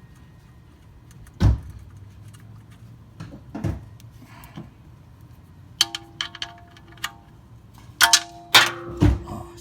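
Metal hand tools clanking and clinking while a 14 mm socket wrench refits a car's oil drain bolt: two dull knocks first, then a cluster of sharp, ringing metal clinks near the end.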